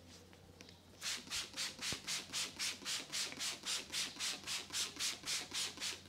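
A barber's hands rubbing briskly over hair and scalp in a head massage, about four even strokes a second, starting about a second in and cutting off suddenly near the end.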